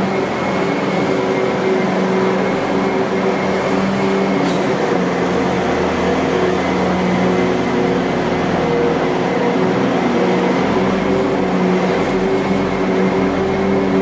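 Bobcat skid-steer loader's diesel engine running steadily as the machine drives with a load.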